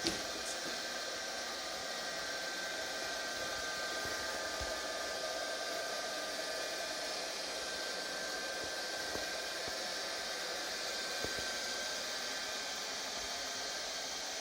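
ILIFE V5 robot vacuum running with a steady whirring hum of fan and motors. A few faint knocks come about 4.5, 9 and 11 seconds in.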